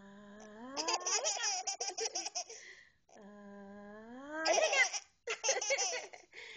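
A small child laughing hard in quick pulsed bursts, twice; each bout starts from a long held voice that rises in pitch.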